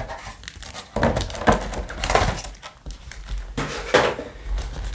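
Handling noise from a clear plastic box insert and a stack of foil booster packs being moved and set down on a table: irregular rustling with several soft knocks.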